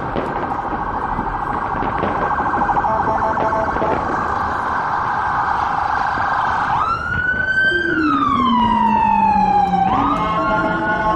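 Emergency vehicle siren: a rapid warbling yelp that, about seven seconds in, switches to a slow wail, rising and then falling over about three seconds, and rising again near the end.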